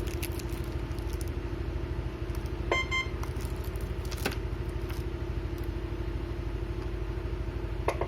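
Vehicle engine idling with a steady low hum. A short electronic beep sounds about three seconds in, and a couple of light clicks come later.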